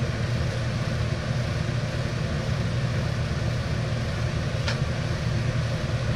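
Steady low mechanical hum, like an engine idling, with one short sharp click about four and a half seconds in as the toilet's plastic pressure-relief cap is fitted.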